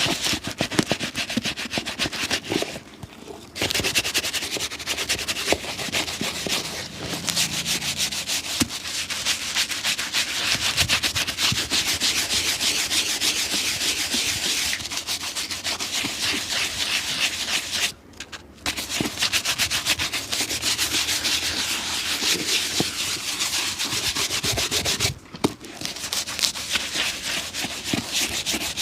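Rapid, continuous scrubbing strokes on a shoe during restoration: brushing or abrasive rubbing of the leather and sole. It stops briefly three times, at about 3, 18 and 25 seconds in.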